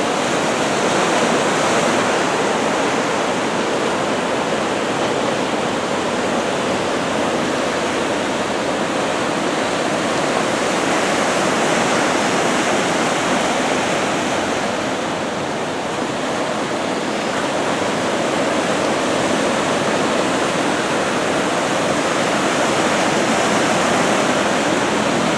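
Ocean surf washing steadily onto the shore as a continuous rush of noise, easing slightly about two-thirds of the way through.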